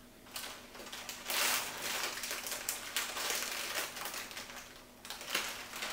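Plastic crinkling and crackling in handling, irregular and on and off, loudest about a second and a half in and again around three seconds.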